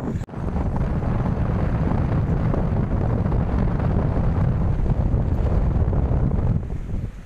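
Strong wind buffeting a phone microphone: a steady low rumble with rushing noise that drops away near the end.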